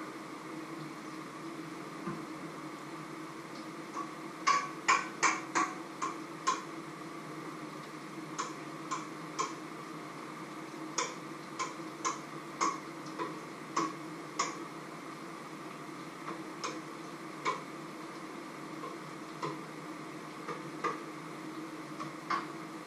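Sharp, separate clinks of a kitchen utensil against a metal pot or bowl. A quick run of them comes about four seconds in, then roughly one a second, over a steady hum.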